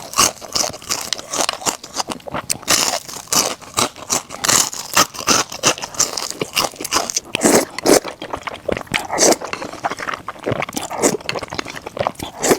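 Close-up crunching, biting and chewing of crispy food, a rapid irregular crackle of bites.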